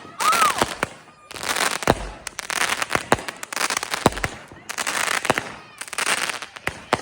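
Fireworks going off in quick succession: repeated bursts of crackling and popping, about one a second, with sharp bangs among them.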